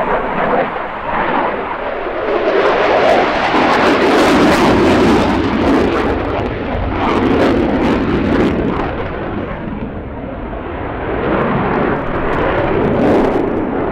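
Italian Air Force Eurofighter Typhoon's twin EJ200 turbofan engines as the jet manoeuvres overhead. The noise swells to its loudest a few seconds in, eases about ten seconds in, and swells again near the end.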